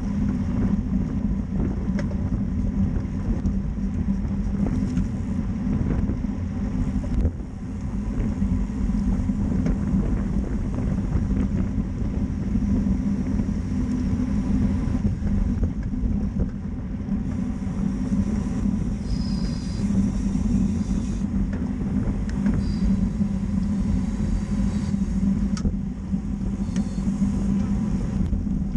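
Steady wind noise on the microphone of a camera mounted on a road bike riding at about 30 mph, with road noise underneath.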